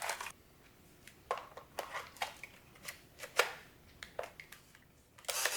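Scattered small clicks and plastic knocks from an old Polaroid instant camera being handled and worked by hand, with a sharper click about three and a half seconds in.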